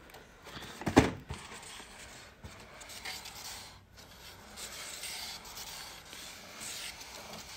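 A cardboard toy box set down on a table with a knock about a second in, then fingers scraping and rubbing at the cardboard as the box is handled and opened.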